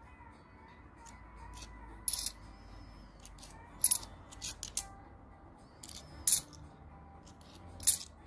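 2 euro coins clicking against each other as they are shifted one at a time across a stack held in the hand: a handful of sharp metallic clinks, one every second or two.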